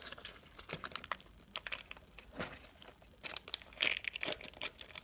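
Small plastic toy wrappers being handled and torn open, crinkling in irregular crackles that come thicker about three to four seconds in.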